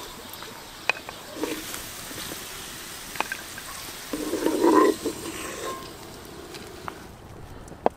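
Pork cracklings being spooned out of hot rendered lard in a cast-iron kettle: a wooden spoon scraping and knocking against the pot, with scattered pops from the fat. A louder clatter lasting about half a second comes about four seconds in.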